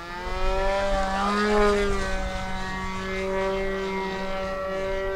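Skymaster F3A radio-control aerobatic model airplane's motor and propeller running in flight, a steady buzzing tone. The pitch climbs as the throttle comes up at the start, lifts briefly about a second and a half in, then holds steady.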